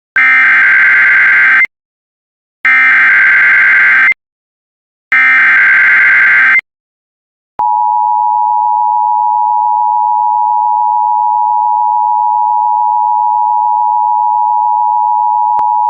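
Emergency Alert System header: three bursts of SAME data tones, each about a second and a half long and about a second apart. Then, about seven and a half seconds in, the steady two-tone EAS attention signal begins and holds for about eight seconds.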